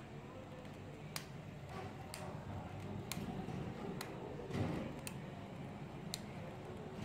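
A clock ticking, one sharp tick about once a second, over a low steady room hum. A duller handling knock comes about four and a half seconds in.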